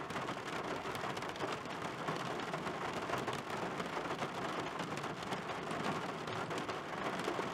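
Steady heavy rain hitting a car windshield: a dense, even patter of countless drops.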